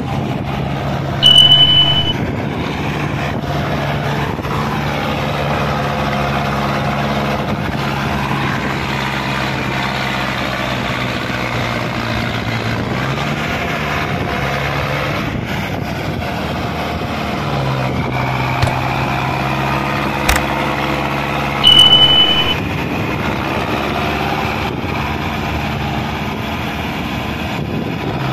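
Mahindra Arjun Novo 605 DI 4WD tractor's 57 HP diesel engine running steadily under load as it pulls a fully loaded trolley through deep mud, its pitch sagging and then picking up again about halfway through. A loud, high, steady beep cuts in twice, once near the start and once about three-quarters of the way through.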